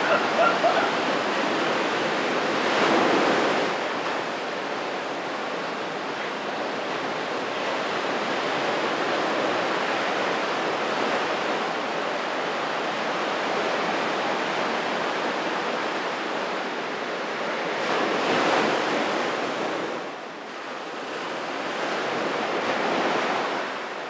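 Small waves breaking and washing up a sandy beach in a steady wash of surf that swells louder three times as waves break.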